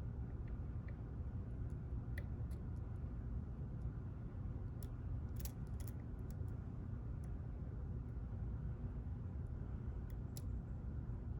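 Single-pin picking of a pin-tumbler lock: a few faint, sharp clicks of the pick against the pins, over a steady low hum.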